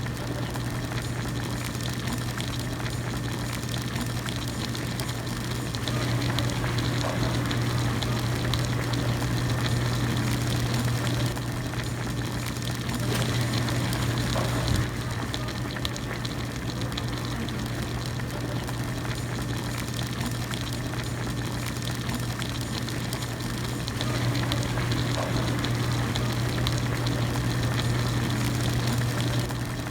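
Hot pot broth boiling, bubbling steadily over a constant low hum, swelling louder for several seconds at a time, around six seconds in, again a little after halfway and near the end.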